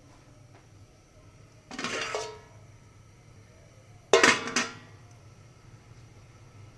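Kitchenware clattering twice: a short clatter about two seconds in, then a louder, sharper clatter of a few quick knocks with a metallic ring a little past four seconds.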